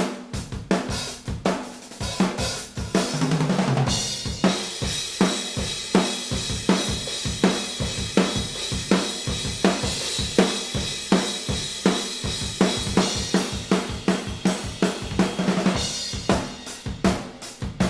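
Acoustic drum kit played as a beat of kick, snare and hi-hat, heard raw through a blend of room microphones with no processing. About three seconds in, a fill on the low toms leads into a stretch under a wash of crash cymbals, which thins out near the end.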